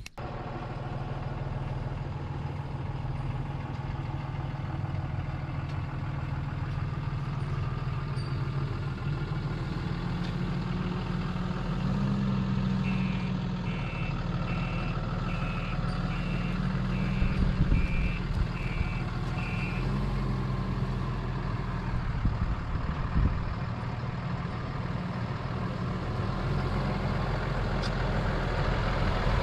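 Engine of a Ram heavy-duty service truck running as the truck is driven slowly into position, a steady low hum that rises slightly about halfway through. For about seven seconds in the middle, a row of about eight evenly spaced electronic beeps sounds over it.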